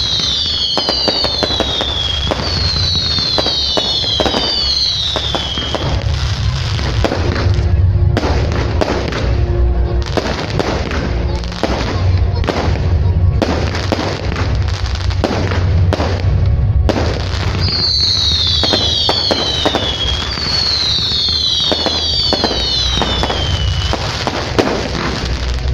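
Fireworks display: a dense run of bangs, crackles and deep booms, with flurries of whistling shells whose whistles fall in pitch, once at the start and again about two-thirds through. Music plays along underneath.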